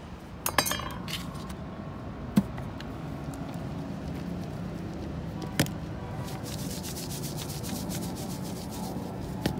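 Wooden seasoning shaker shaken over a plastic tray of boiled fava beans and corn, a fast, hissy patter of seasoning from about six seconds in. A few sharp knocks come before it, over a steady low hum.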